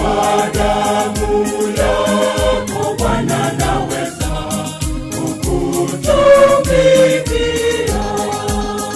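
A choir singing a Swahili gospel hymn over a steady low beat of about two strikes a second.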